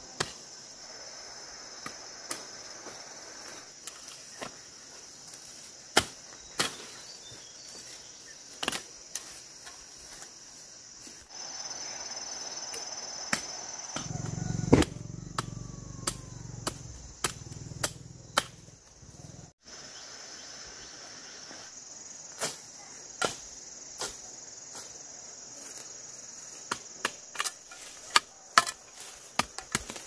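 Steady high-pitched insect chorus, like crickets, with scattered sharp knocks and snaps throughout. A low hum joins for a few seconds around the middle.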